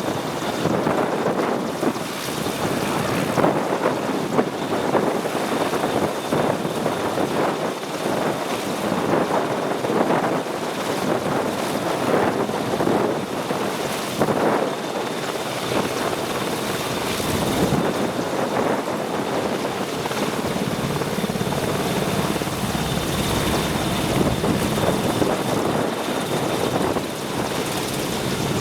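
AgustaWestland AW101 Merlin helicopter noise: the rotor and turbines running steadily, with a faint high turbine whine held throughout.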